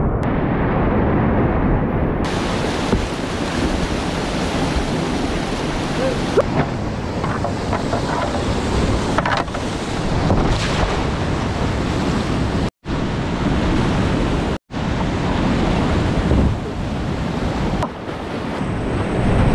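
Whitewater rapids rushing loudly around a kayak, with wind buffeting the camera microphone. The sound cuts out to silence for a split second twice, about 13 and 15 seconds in.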